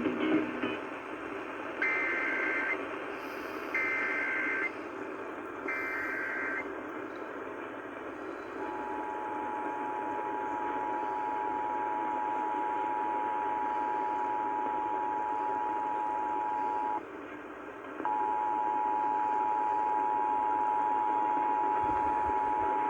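Emergency Alert System alert heard through a hissy radio broadcast: three short warbling SAME header data bursts about two seconds apart, then the steady two-tone EAS attention signal. The attention signal sounds for about eight seconds, drops out for a second, then resumes. This is the opening of a required monthly test.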